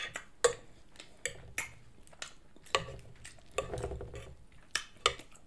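A fork clicking and scraping against a serving plate as food is picked up. It makes a string of short, sharp clicks at uneven intervals.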